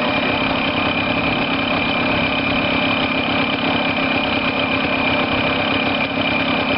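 Yamaha TY 125 single-cylinder two-stroke engine idling steadily, at an even speed with no revving.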